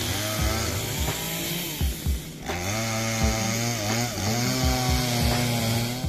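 Petrol chainsaw running as it cuts through a log, mixed with background music that has a steady beat. The saw's high hiss drops briefly about halfway through, then picks up again.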